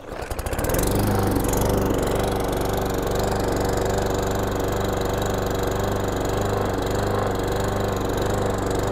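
Briggs & Stratton E-Series four-stroke engine on a walk-behind lawn mower starting up in the first second, then running with the repeated rise and fall in speed of surging. This is the governor hunting to hold its set speed because of a wrong air-to-fuel ratio: too little fuel or too much air.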